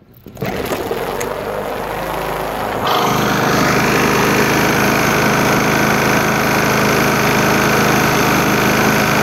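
Walk-behind lawn mower engine, its bent crankshaft straightened with a hammer, starting about half a second in. It runs at a lower speed at first, then picks up to a steady full-speed run about three seconds in.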